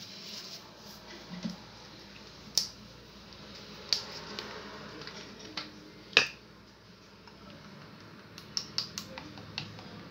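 Scattered sharp clicks and taps of cosmetic bottles and caps being handled. The loudest comes about six seconds in, and a quick run of clicks follows near the end.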